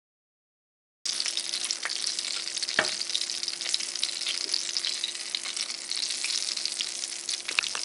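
Syrniki (cottage-cheese pancakes) sizzling and crackling as they shallow-fry in hot oil in a pan. The sizzle starts suddenly about a second in after silence. A few sharp clicks come as a wooden spatula moves the pancakes.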